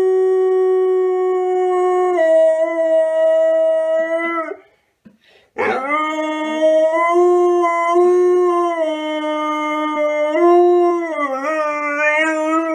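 A pet dog howling: a long, steady howl that drops slightly in pitch and breaks off about four and a half seconds in, then after a short pause a second long howl that swoops up, holds, and wavers near the end.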